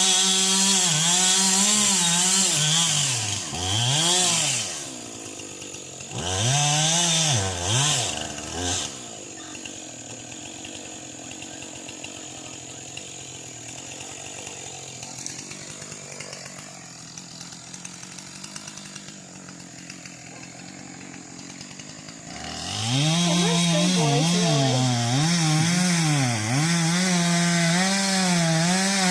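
Chainsaw cutting a pine tree: the engine runs at full throttle, its pitch repeatedly sagging and recovering as the chain bites into the wood. It drops back to a quieter idle for a long stretch in the middle, then revs up and cuts again near the end.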